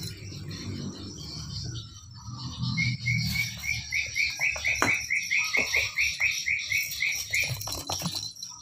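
A small animal's call: a rapid run of about seventeen short chirps at one pitch, some four a second, starting about three seconds in and stopping near the end, over a steady high buzz. Underneath are soft bumps and scuffles from kittens wrestling on a wooden floor.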